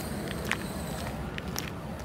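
Footsteps of worn Sperry Top-Sider leather boat shoes, their soles coming loose, on a concrete pavement: a few sharp footfalls and scuffs, the loudest about half a second in, over a low steady rumble.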